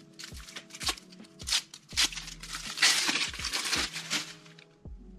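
Chocolate bar's foil wrapper crinkling as it is peeled off by hand, in a run of short rustling bursts, loudest about three seconds in. Soft background music plays underneath.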